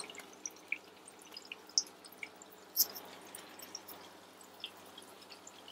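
Oil sizzling gently around raw minced-meat kababs shallow-frying in a nonstick frying pan, with scattered small pops and spits. There is one louder crackle near the middle, as a second patty is laid into the hot oil.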